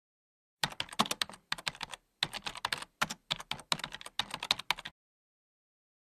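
Typing on a computer keyboard: a quick, irregular run of key clicks with a brief pause about two seconds in, stopping about five seconds in.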